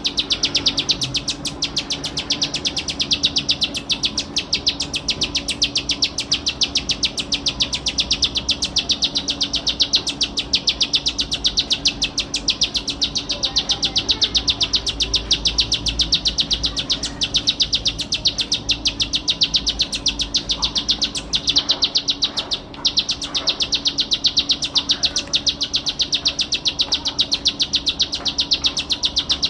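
Ciblek sawah, a prinia, singing energetically: a fast, unbroken buzzy trill of high notes at about ten a second, with one brief break about two-thirds of the way through.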